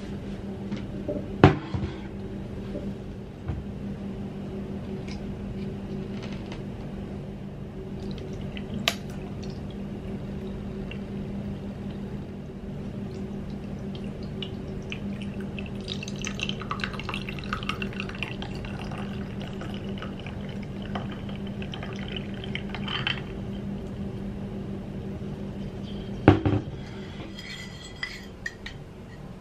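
Fresh pennywort juice poured over ice cubes in a tall glass, with the ice clinking and crackling as the liquid settles, over a steady low hum. A few sharp clinks of glass and spoon, the last near the end.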